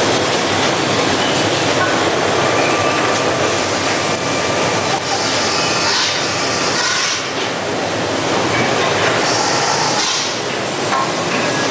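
Steady factory-floor noise from a CRT television assembly line: conveyors and automated stations running together, with a few faint steady tones in the din and a couple of brief higher hisses partway through.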